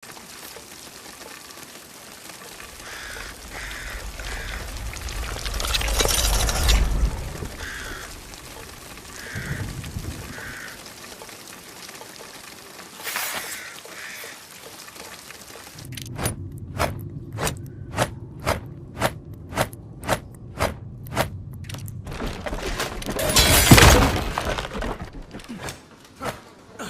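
Tactical knife sound effects: a noisy swell that builds to a loud burst, a sharp hit, then a run of about a dozen evenly spaced sharp clicks, roughly two a second, ending in a loud crashing burst near the end.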